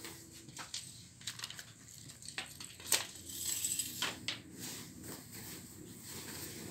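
Scattered clicks, taps and crinkly rustling of materials being handled, with one sharper click about three seconds in.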